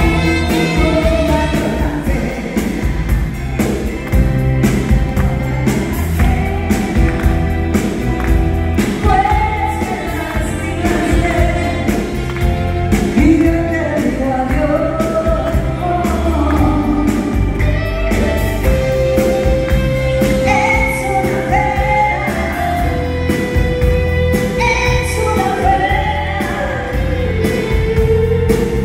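Live band music: a woman singing a ballad into a microphone, backed by drums, bass guitar, electric guitar, keyboard and saxophone, with a few long held notes in the second half.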